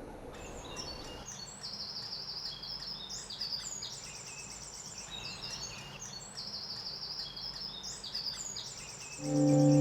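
A songbird singing high, trilled phrases, one after another, over a faint steady outdoor background. Music comes in near the end.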